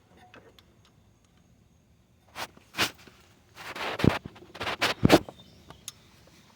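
A 1/4-inch-drive breaker bar and 13mm socket clinking and scraping against metal as the bolt is worked loose. There are light clicks at first, then sharper knocks and two scraping stretches, with the loudest hits about four and five seconds in.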